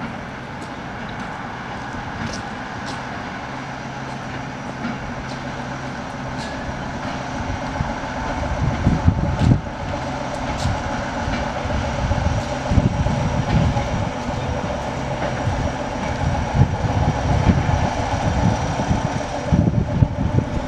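МПТ4 diesel track maintenance railcar running past on its diesel engine, growing louder about eight seconds in as it draws level, with scattered clicks from the wheels on the rails.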